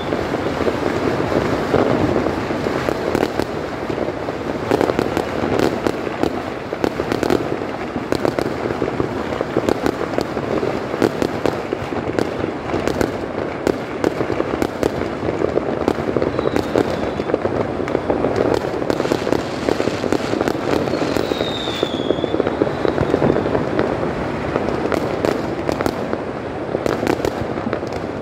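Fireworks going off in a dense, continuous barrage of rapid crackling and popping, with short falling whistles twice in the second half.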